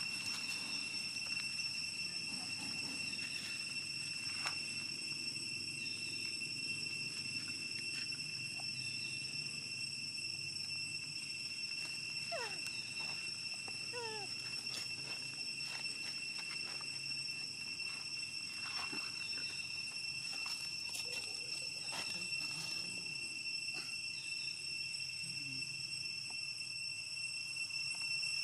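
Steady, unbroken high-pitched drone of insects, with a few faint clicks and rustles and a couple of short gliding calls about halfway through.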